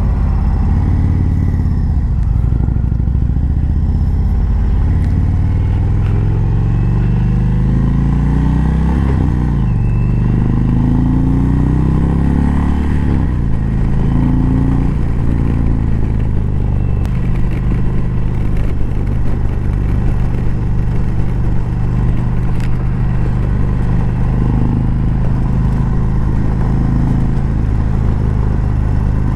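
Indian V-twin touring motorcycle accelerating onto a highway, heard from the rider's seat: the engine's pitch climbs and drops back at two upshifts, then holds steady at cruising speed with wind rushing past.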